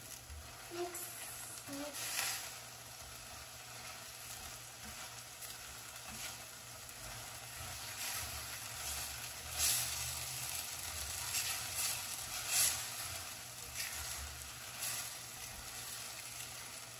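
Tomato and taro leaf curry sizzling in a stainless steel pan on a gas burner as a silicone spatula stirs it, with a scrape of the spatula against the pan now and then.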